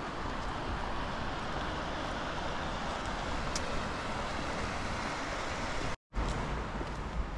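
Steady outdoor background noise, an even rushing hiss with no distinct events. It cuts out for a moment about six seconds in, then comes back with a stronger low rumble.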